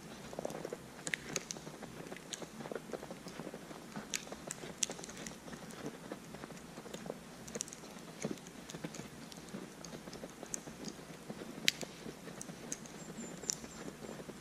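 Footsteps of a hiker walking through fresh snow at a steady pace, with scattered sharp ticks.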